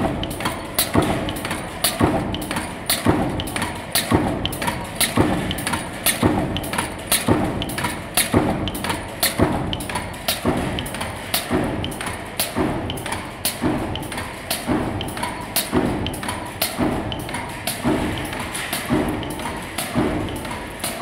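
Power press punching flat washers from metal strip in an automatic washer line: a regular thump about once a second as the press strokes through the die, with lighter metallic clicks between the strokes.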